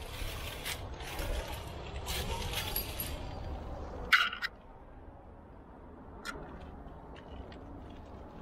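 Climbing gear clinking and scraping against rock while the climber moves, with one sharp metallic click about four seconds in, then only scattered light clinks.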